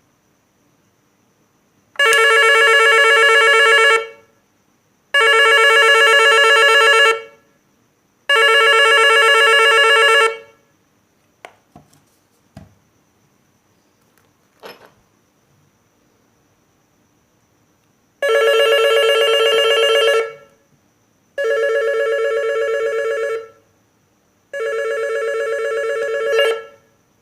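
Restored electric doorbell ringing in six steady bursts of about two seconds each: three rings about a second apart, a few light clicks, then three more rings.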